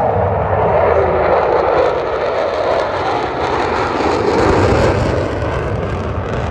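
Blue Angels F/A-18 Super Hornet jets flying a four-ship diamond past, with the loud, steady roar of their jet engines. The rushing roar sweeps down in pitch and then back up as the formation passes.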